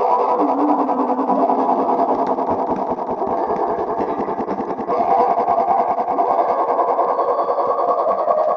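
A sneeze sound digitally multiplied and looped so densely that it merges into a continuous, distorted buzzing drone, a little louder again about five seconds in.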